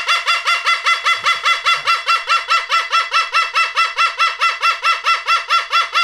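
A cockatoo calling in a fast, even run of short, harsh notes, about five or six a second, each note dropping slightly in pitch.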